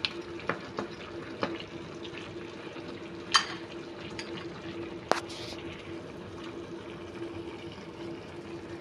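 Braising sauce with pork knuckle simmering in a clay pot: bubbling liquid with scattered pops and a couple of sharper clicks, over a steady low hum.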